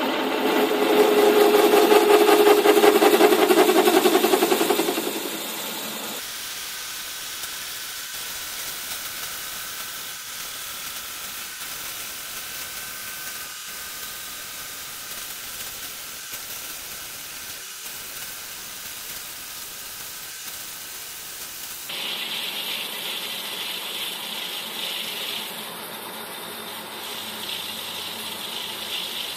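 Metal lathe spinning a workpiece in its chuck: a loud, pitched whine for the first five seconds, then a quieter steady running noise, with a louder hiss coming back about three-quarters of the way through.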